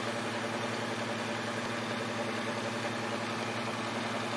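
Crown MacroTech 9000i power amplifiers powered up and idling: a steady whir of cooling fans over a low electrical hum.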